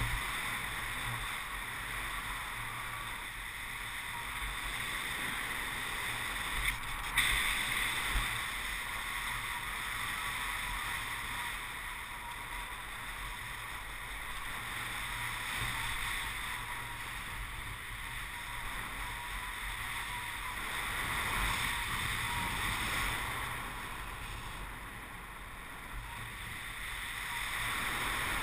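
Steady rush of air past a camera microphone on a paraglider in flight, swelling and easing slowly, with a couple of brief knocks about seven seconds in.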